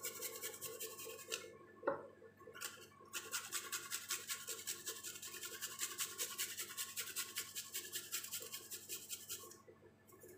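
Garlic cloves being grated on a small flat metal hand grater: quick rasping strokes, about four or five a second. There is a short spell at the start, a single knock about two seconds in, then a long even run that stops near the end.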